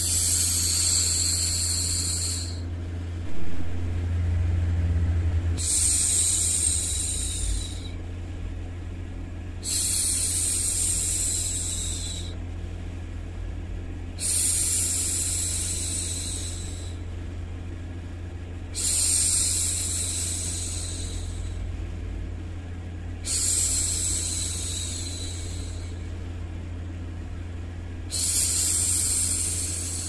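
A woman's drawn-out hushing "shhh", repeated about every four and a half seconds, each shush lasting about two and a half seconds. Under it runs a steady low white-noise hum, with one brief louder bump about three seconds in.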